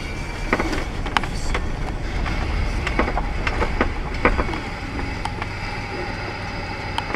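Road noise of a car driving, heard from inside the cabin through a dashcam: a steady low rumble with a scattering of irregular clicks and knocks.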